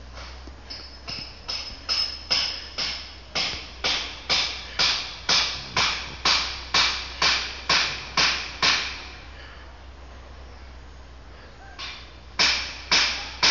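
A run of about twenty evenly spaced sharp knocks or crunches, about two a second, stopping a little after eight seconds, then three more near the end.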